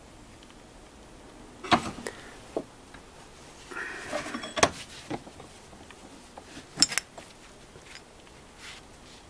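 Parts of a partly dismantled electronic EGR valve being handled and pulled apart: scattered sharp clicks and knocks of small metal pieces, with a brief scraping rattle about four seconds in.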